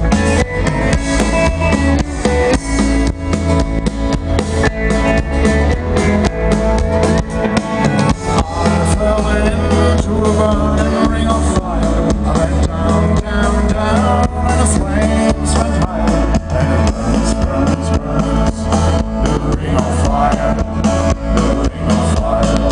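Live country band playing over a PA system: electric guitar, bass and drum kit on a steady beat, with a voice singing at times, heard from among the audience.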